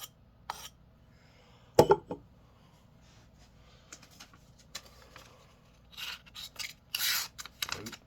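Civivi Vision FG knife edge scraped across the rim of a cup in short strokes to dull it, with a loud knock about two seconds in and a run of strokes near the end.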